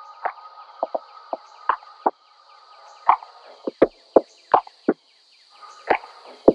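A loose, irregular run of sharp pitched knocks, roughly two a second and louder from about halfway, over a steady faint high-pitched hum like insects.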